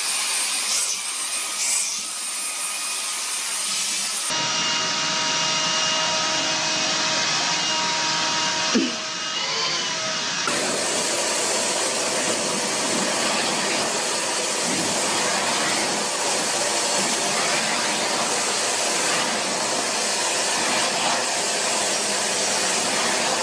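Vacuum cleaners running steadily, a constant motor hiss with a faint whine, being passed over cats' fur; the first is a cordless stick vacuum. The sound changes abruptly twice, and there is one short knock about nine seconds in.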